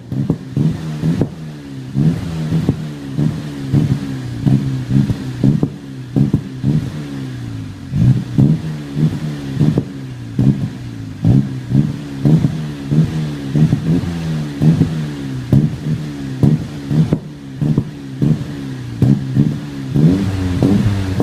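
Saab 9-3 2.0T's turbocharged four-cylinder engine running through a Magnaflow 14816 sport exhaust, its note shifting up and down, with short sharp exhaust pops about twice a second.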